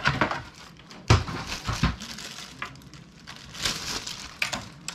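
Clear plastic bag crinkling and a cardboard box being handled as a keyboard is unpacked, in several short rustling bursts with a couple of dull knocks about one and two seconds in.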